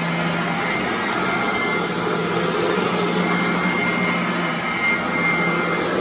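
Vintage Royal commercial upright vacuum cleaner running steadily while pushed over carpet: a constant motor noise with a steady low hum and a thin high whine.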